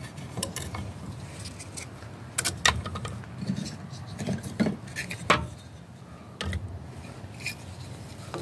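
Small split kindling sticks being laid into a wood-burning kitchen stove's firebox, knocking and clattering against each other in a string of irregular sharp clicks.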